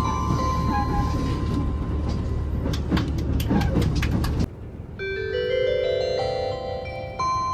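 KiHa 85 series diesel railcar's on-board 'Wide View' chime: bell-like electronic notes ringing over the train's running rumble and rail clatter, with a few sharp clicks about three seconds in. After a cut, another chime begins, its notes stepping upward in a quick run, then a fresh phrase near the end.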